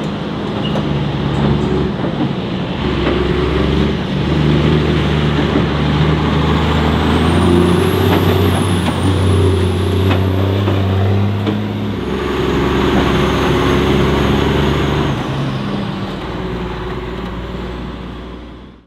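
Tatra off-road truck's diesel engine running under load as the truck drives by, its pitch stepping up and down with the throttle, with a thin high whine rising about seven seconds in. The sound fades out near the end.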